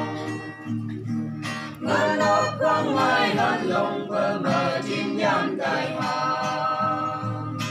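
A small mixed group of men and women singing a gospel song together, accompanied by an acoustic guitar; the voices dip briefly about one and a half seconds in, then come back in strongly.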